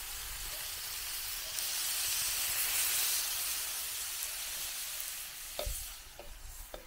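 Chicken pieces and sliced onion sizzling in a frying pan on a campfire grill, the sizzle swelling in the middle, with a few sharp clicks of metal tongs against the pan near the end.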